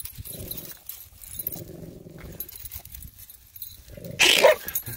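Yorkshire terrier growling in two low stretches, then one loud, sharp bark about four seconds in.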